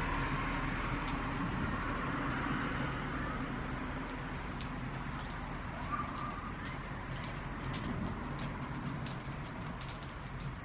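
Campfire crackling: a wood fire sending up scattered sharp pops and snaps over a steady rushing noise.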